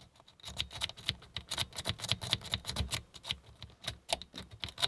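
Lock-pick rake scrubbing back and forth over the pins of a four-pin Burg Wächter Quadra padlock: a fast, irregular run of small metallic clicks and rattles, starting a moment in.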